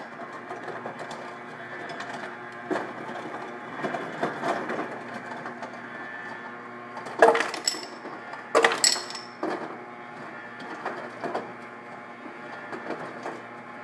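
Refrigerator door ice dispenser running with a steady motor hum. A few ice cubes drop and clatter into a glass, the loudest about seven and nine seconds in. The ice bin is nearly empty because the ice maker barely makes any ice.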